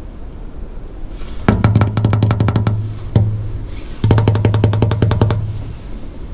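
Fingers rapidly drumming and scratching on the bed of a playground slide, which booms with a low hum under the taps. There are two runs of about a dozen taps a second, each lasting a little over a second, with a single knock between them.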